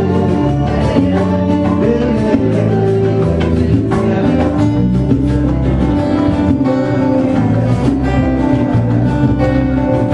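Live band music: strummed acoustic guitar and electric guitar over a hand drum, playing steadily and loud.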